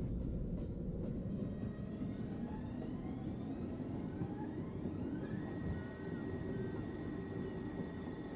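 R62 subway car accelerating over a continuous low rumble. Its motor whine rises in pitch in several tones over the first few seconds, then settles into one steady high tone.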